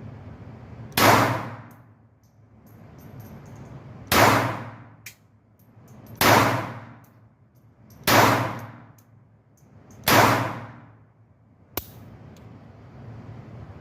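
Tanfoglio .25 ACP pocket pistol firing five shots about two seconds apart, each with a ringing decay, followed near the end by one short sharp click.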